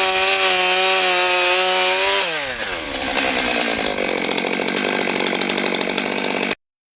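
Stihl MS 661 C-M 91cc two-stroke chainsaw running at full throttle. About two seconds in, its pitch drops and the sound turns rougher as the chain bites into wood and cuts under load. The sound cuts off suddenly near the end.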